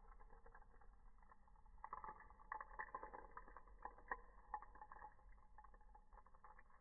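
Faint clicking and rustling of a glass roll-on bottle being turned over in the hand, busiest in the middle.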